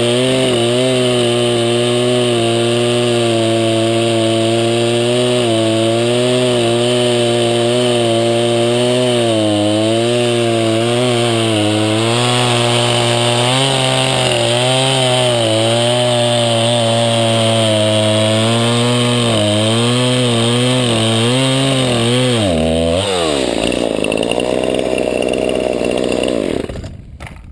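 Craftsman 20-inch-bar 50cc two-stroke chainsaw running at full throttle and cutting through a log, its pitch wavering under load; the original, unsharpened chain is still cutting well. About 23 seconds in the pitch drops suddenly, then rises and falls as the saw comes out of the cut, and the sound dies away near the end.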